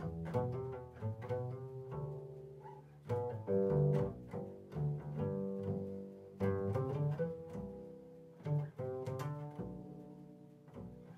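Five-string upright bass played pizzicato: quick groups of plucked notes and chords, each left to ring on and die away before the next group.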